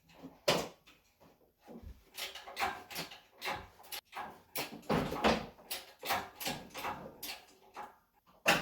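Irregular clunks, clicks and rattles of hands and parts being worked in an engine bay, with a sharp knock near the start and another near the end.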